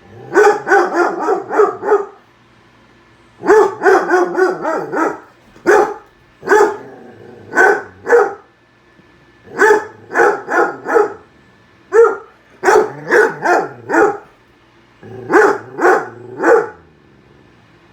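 Dog barking repeatedly at a running microwave, in quick runs of several barks with short pauses between them.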